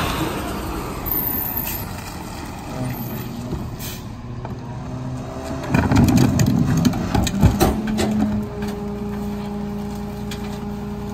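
Rear-loader garbage truck idling at the curb while a plastic wheeled trash cart is rolled up and tipped into the rear hopper, with a run of knocks and clatter about six to eight seconds in. From about eight and a half seconds a steady, even-pitched hum joins the engine.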